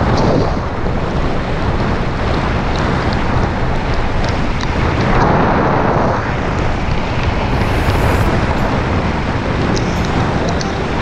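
Wind rushing over an action camera's microphone as a Giant Trance mountain bike rolls fast along a wet concrete road, with tyre hiss and scattered light clicks.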